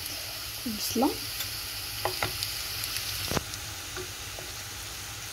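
Chopped onions sizzling in oil in a nonstick frying pan, browned to golden. A wooden spatula stirs them and knocks against the pan a few times, the sharpest knock about three and a half seconds in.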